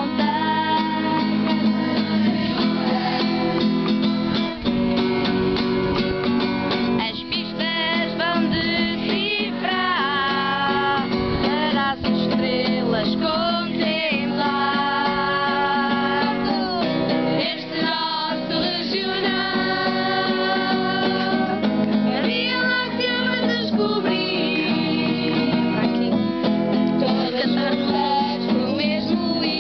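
Portuguese camp anthem: acoustic guitar strumming steadily under voices singing the melody in phrases.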